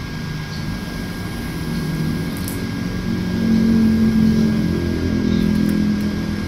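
A motor vehicle's engine passing by, swelling to its loudest about four seconds in and then fading.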